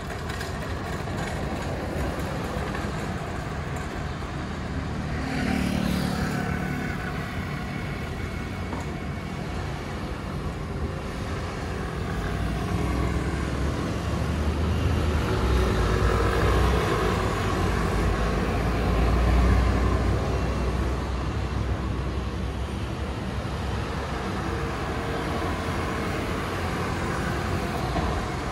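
Mixed road traffic of scooters and cars passing through an intersection: a steady run of engines and tyres. One vehicle stands out as it passes about five seconds in, and a deeper rumble builds to its loudest about two-thirds of the way through.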